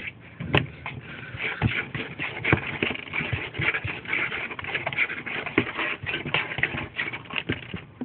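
Kittens scuffling and scratching about, with many small knocks and clicks and a sharp click about half a second in.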